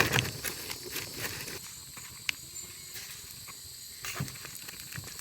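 Heavy-duty aluminium foil crinkling and crackling in irregular small clicks as a food packet is handled and its edges folded, busiest at the start, with one sharp click a little past two seconds.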